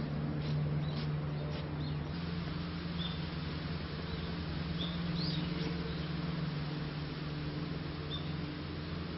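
Footsteps on a woodland path for the first couple of seconds, then a few short high bird chirps, about three separate calls, over a steady low hum.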